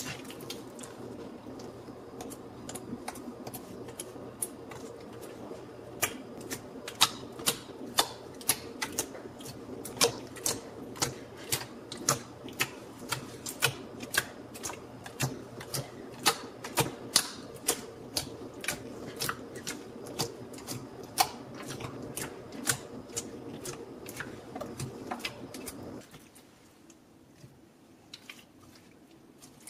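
Clear slime being pressed and squished by hand, giving crisp popping clicks as trapped air bubbles burst, a few a second, stopping a few seconds before the end.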